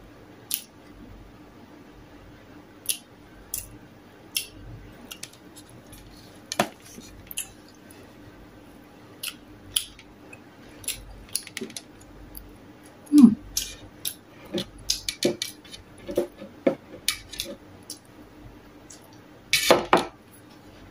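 Eating bacon and rice by hand from a metal tray: scattered sharp clicks of chewing and fingers tapping and scraping on the tray, busier in the second half, with louder knocks about thirteen seconds in and a dense clatter near the end.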